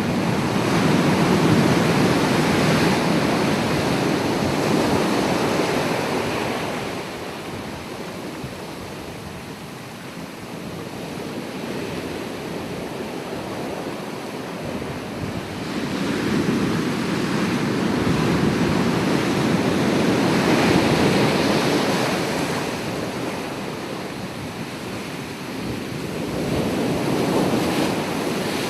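Ocean surf: waves breaking and washing in, the rush swelling and fading in two long surges about fifteen seconds apart, and building again near the end.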